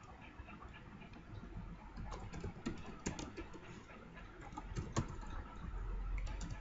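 Computer keyboard being typed on: irregular key clicks, a few at first and then quicker runs of keystrokes from about two seconds in.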